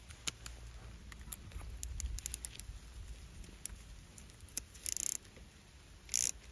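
Light scattered clicks and taps of a 5 mm screw and socket extension being worked into the end of a removed idle control valve held in gloved hands. Two short rustling scrapes come about five seconds in and again near the end.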